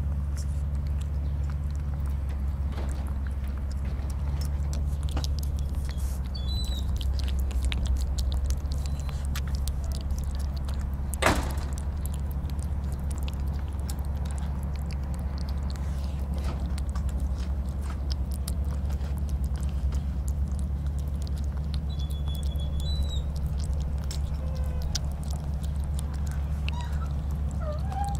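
Black kitten chewing and lapping chunks of wet cat food from a plastic tub close to the microphone: many small wet clicks and smacks, with one sharper click about eleven seconds in, over a steady low hum.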